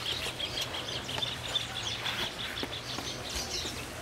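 Birds calling: a rapid run of short, high, evenly spaced notes for the first two seconds or more, with scattered chirps over it.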